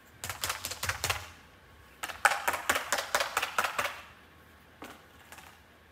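Dry, frozen snow crunching underfoot in quick crackling runs: a short run about a second long, then a louder one of about two seconds, with a couple of faint crunches near the end.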